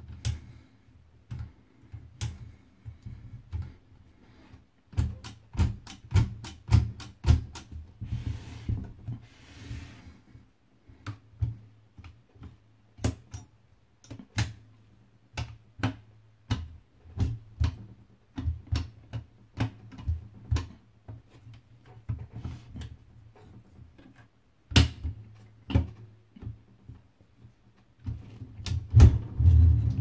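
Oliver No.11 typewriter mechanism worked by hand: irregular metallic clicks and clacks from its platen and carriage parts, with a quick run of clicks a few seconds in and a short rasping stretch after it. Near the end the carriage is handled directly, giving louder, heavier knocks.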